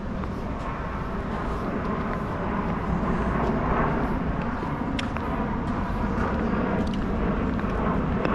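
Outdoor city background noise: a steady low rumble that grows louder over the first few seconds, with a few faint clicks.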